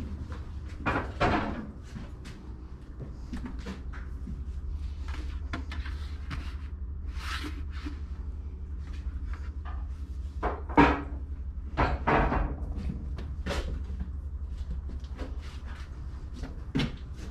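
Scattered knocks and clinks of hard objects being picked up, shifted and set down on thrift store shelves, the loudest about a second in and again around eleven to twelve seconds in, over a steady low hum.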